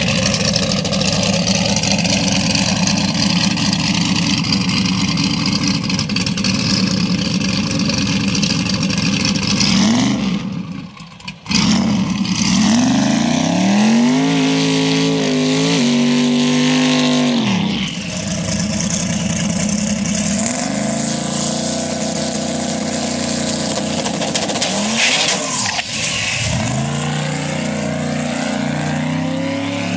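Supercharged V8 of a Camaro ZL1 on a drag-strip pass. A loud steady engine sound comes first; after a short break about ten seconds in, the engine pitch climbs and steps at each gear change as the car accelerates through the gears, with further rising sweeps later.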